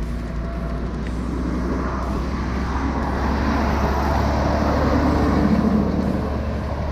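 Road traffic: a motor vehicle passing close by, its noise swelling to a peak about five seconds in and then easing, over a steady low rumble.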